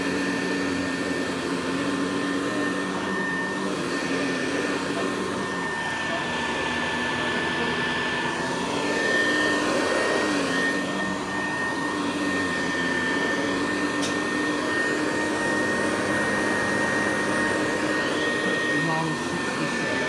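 Hoover Deluxe Model 66 upright vacuum cleaner running while pushed across a tiled floor: a steady motor whine that dips briefly in pitch about halfway through.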